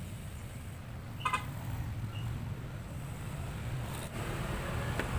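Steady low rumble of road traffic, with one brief high chirp about a second in.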